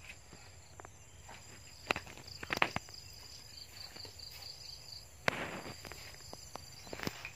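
An insect trilling, a high pulsing chirp that lasts about two and a half seconds, over a faint steady high insect buzz. Scattered sharp clicks and knocks and a brief rustle, the loudest sounds, come through around it.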